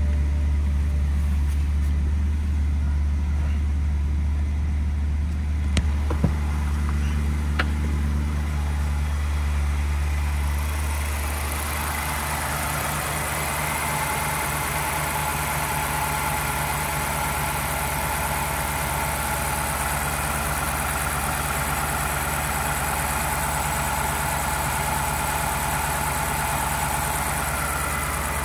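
2008 BMW 550i's 4.8-litre V8 idling steadily at about 1,000 rpm. A few sharp clicks come about six to eight seconds in, and from about ten seconds in a steady high hiss joins the engine note.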